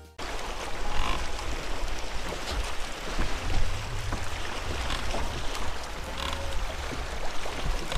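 Wind noise on the microphone with water lapping against a bass boat's hull: a steady rush with a gusting low rumble.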